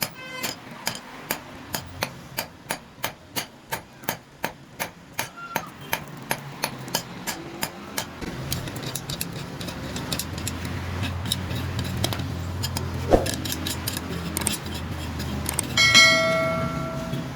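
Hammer blows on metal, about three a second and evenly spaced for the first half. A steady low mechanical hum then takes over with only scattered knocks, and near the end one loud strike rings on with a metallic tone.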